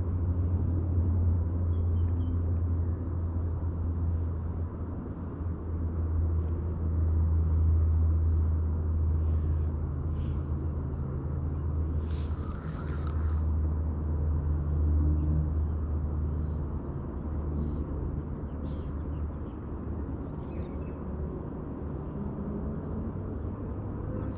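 A steady low rumbling hum, like a distant motor, with a few faint bird calls and a brief hiss about twelve seconds in.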